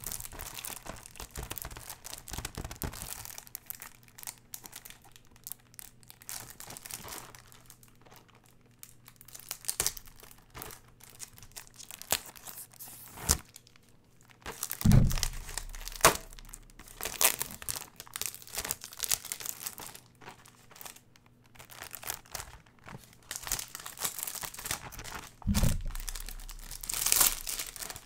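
Close-up handling of a cardboard box of Milka chocolates and its wrapping: irregular crinkling, crackling and tearing with sharp little clicks. Two heavy low thumps come about halfway through and again near the end.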